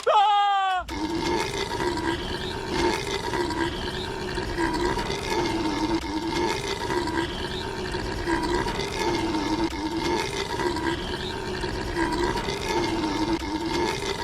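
A long, drawn-out belch: a short falling-pitch burp opens it, then a rasping, pitched belch goes on and on, its pitch wavering in a regular cycle about once a second.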